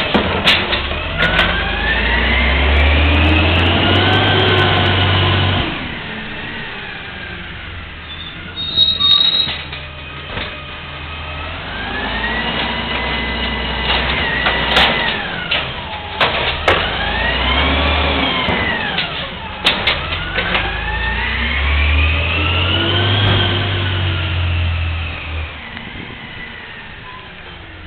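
Diesel engine of an automated side-loader garbage truck revving up and down three times, its pitch rising and falling in long sweeps. Sharp metallic clanks and knocks come in between the revs.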